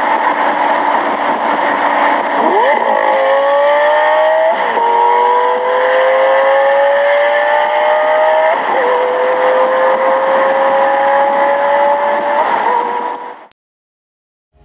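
Car engine accelerating hard through four upshifts, its note climbing steadily between each gear change and dropping at each shift, then cutting off suddenly near the end.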